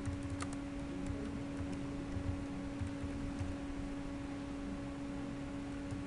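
Computer keyboard keys clicking as a command is typed, a few quick keystrokes about half a second in and a few fainter ones after, over a steady electrical hum.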